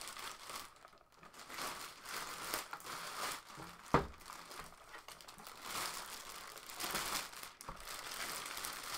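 Clear plastic bag crinkling and rustling as it is pulled up and off a sewing machine, with one sharp knock about four seconds in.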